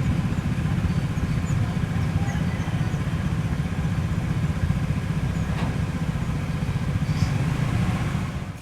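Diesel locomotive engine running with a steady low rumble, with a few faint clicks over it, fading out at the very end.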